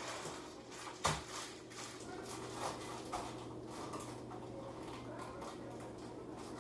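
Light taps and small clicks of makeup tools and containers being handled close to the microphone, with a sharper click about a second in, over a steady low electrical hum.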